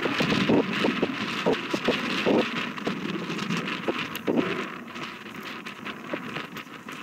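Wind buffeting the microphone in irregular gusty thumps. Underneath is the steady rushing roar of an Airbus A320's CFM56 jet engines on the takeoff roll.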